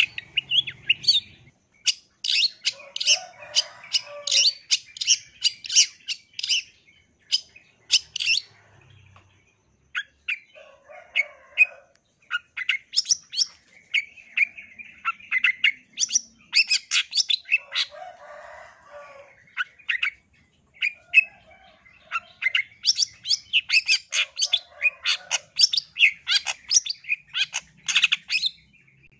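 Long-tailed shrike (cendet) singing a fast, chattering song of short, sharp high notes. It comes in bursts, with two brief lulls.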